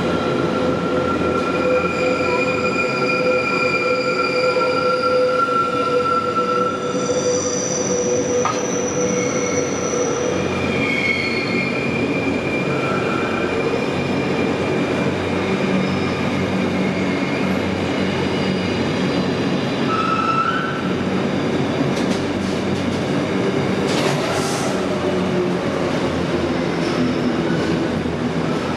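A container freight train's wagons rolling steadily past at close range, their wheels squealing in several sustained high tones that come and go over the continuous rumble. A couple of sharp clacks come in the last few seconds.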